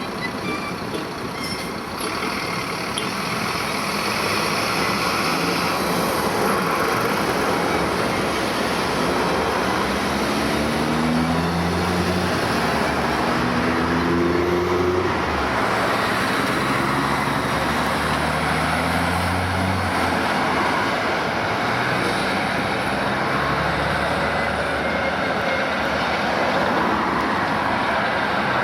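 Steady, loud road traffic noise. From about a third of the way in, a heavy vehicle's engine climbs in pitch in several short steps, then drops back to the traffic noise.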